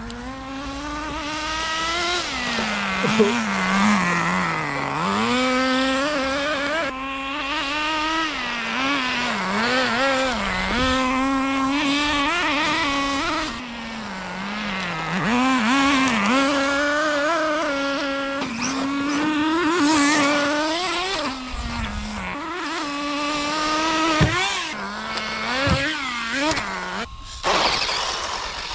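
Radio-controlled car being driven hard, its motor note rising and falling with the throttle over and over, dropping away briefly a few times.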